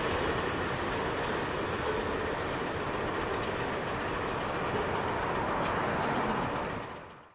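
Steady rolling noise of a passing grain train's hopper wagons on the rails, with a few faint ticks, fading out near the end.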